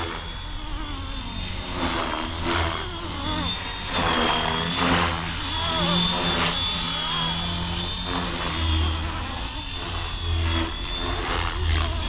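FlyWing FW450 V3 RC helicopter in fast flight: a steady high-pitched motor and rotor whine that wavers slightly in pitch, with the sound swelling and fading several times as it is pushed through passes.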